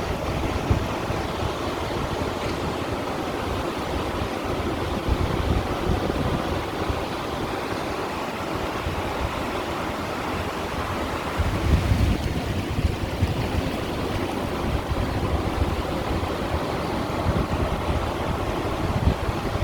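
Sea waves washing over and against stones on the shore, a continuous rush of water with a stronger surge a little past halfway, with some low wind buffeting on the microphone.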